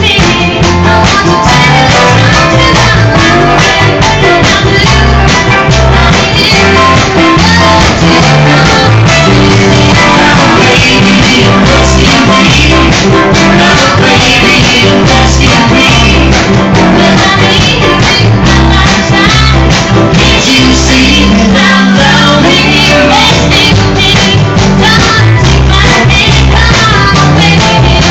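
Live country-rock band playing with drums, guitar and singing, recorded very loud.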